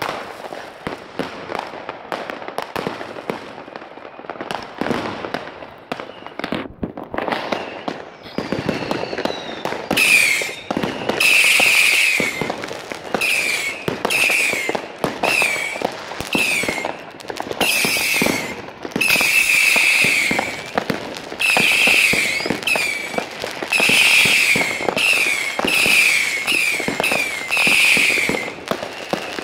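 Fireworks going off close by. For about the first ten seconds it is a dense run of firecracker cracks and bangs. After that comes a string of short, high shrieking bursts, about one a second, each dropping a little in pitch, with crackling between them.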